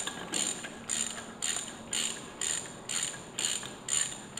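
Hand ratchet clicking in short repeated strokes, about two a second, as it runs a socket on the axle nut of a 1979 Toyota Hilux front spindle. The nut is still spinning down freely and has not yet been tightened to set the wheel-bearing preload.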